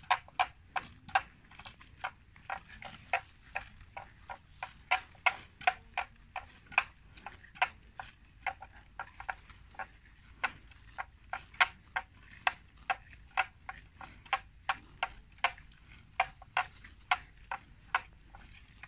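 Water buffalo grazing, tearing off mouthfuls of grass in short, sharp snaps about two or three times a second.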